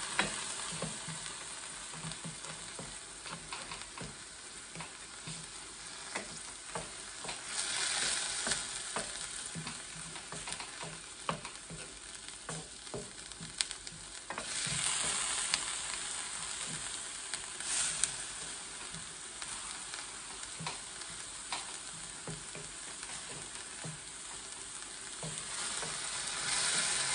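Garlic and ginger paste sizzling as it fries in a stainless steel electric skillet, stirred with a wooden spoon that clicks and scrapes against the pan. The sizzle swells louder a few times as the paste is pushed around.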